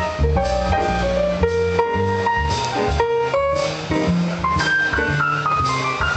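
Instrumental music with a steady beat: a keyboard melody of short distinct notes over a bass line and drums.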